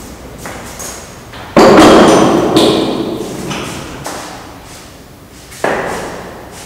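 Metal rear paddock stand clanking as it is handled and set under a motorcycle: a sharp metallic clank about one and a half seconds in that rings on for a couple of seconds, a lighter clank near the end, and small knocks between.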